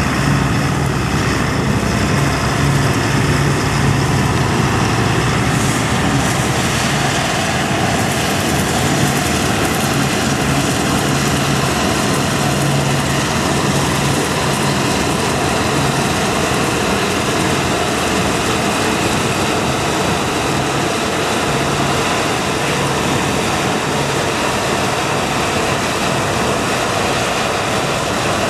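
Heavy farm machinery running steadily at working speed: a low engine hum under a dense, even mechanical rush that stays unchanged throughout.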